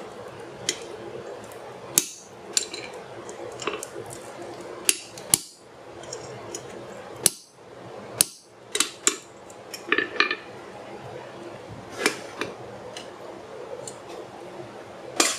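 Hammer blows on a hand-held steel tool set on a red-hot rail spike on the anvil: about fifteen sharp, irregularly spaced metal strikes, a few with a brief ring, over a steady background noise.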